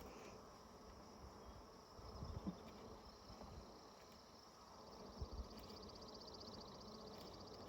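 Honeybees buzzing faintly around an open hive, with a couple of soft knocks about two and a half and five seconds in.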